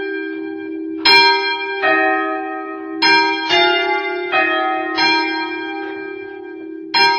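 Church bells ringing: several bells of different pitch strike in an uneven pattern, about seven strikes, each left ringing, over the steady deep hum of a large bell.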